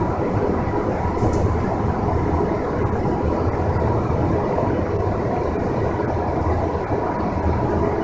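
Steady rumble of the BART Oakland Airport connector's cable-hauled people-mover car running along its elevated guideway, heard from inside the car.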